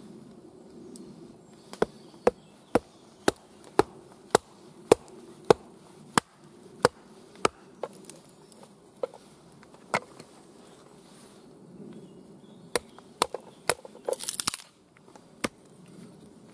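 Husqvarna axe, its bit set in a small piece of wood, knocked down again and again onto a wooden chopping stump to split the piece: sharp wooden knocks, about two a second at first, then slower, with a brief rough rustling burst near the end as the piece comes apart.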